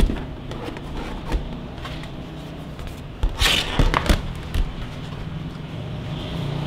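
Stiff plastic wall panels of a folding mini photo studio box being bent and set up by hand. A sharp knock at the start, another about a second and a half in, then a burst of plastic rustling and knocks around the middle.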